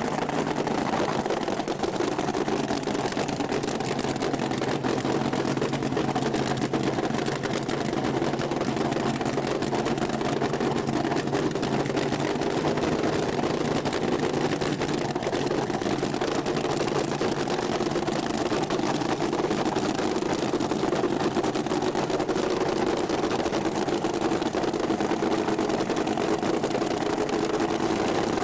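Drag-racing car engine idling steadily at the starting line, a dense, even running sound with no launch or full-throttle run.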